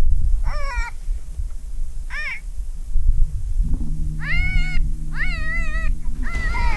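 Five short, high, wavering animal-like cries, spaced over a steady low rumble, with a low steady hum under the middle cries.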